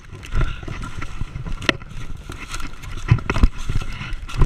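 Running footsteps crashing through leaf litter and undergrowth, with the knocks and rumble of a jolting body-worn camera. Several hard thumps, the loudest in the second half.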